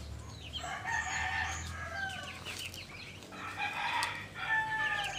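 Muscovy ducklings peeping in quick runs of short, high chirps. Longer drawn-out poultry calls come twice, about a second in and again near the end.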